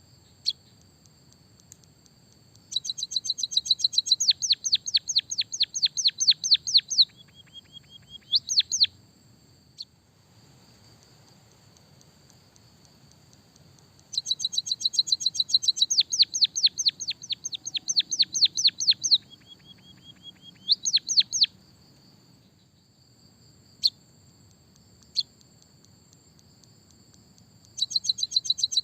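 A white-headed munia trained on canary song, singing rapid trills of sharply falling high notes at about eight a second. There are two full bouts and the start of a third, each of the full ones ending in a lower held note and a few quick rising notes. A faint steady high buzz runs underneath.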